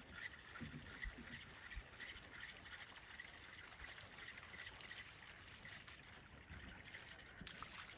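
Faint outdoor ambience: a low hiss with faint, rapidly repeating high chirps and a few soft knocks.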